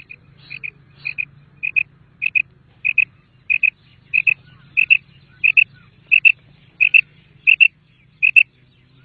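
Common quail calling: a steady, evenly spaced series of sharp double notes, about thirteen pairs, one pair roughly every two-thirds of a second. A faint low hum lies beneath.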